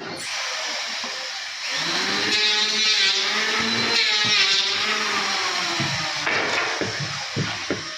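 Power tool running and cutting into wood, a steady hiss with a motor whine whose pitch wavers under load, louder a couple of seconds in and dying away near the end.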